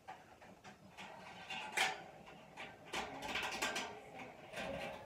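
Irregular clicks, taps and rustling from the parts of a metal smoker being handled during assembly, with one sharper click about two seconds in.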